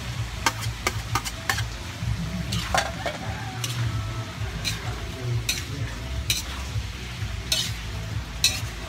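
A metal spatula stir-frying sliced cabbage and carrots in a large metal wok, scraping and clinking against the pan about once a second over a steady sizzle.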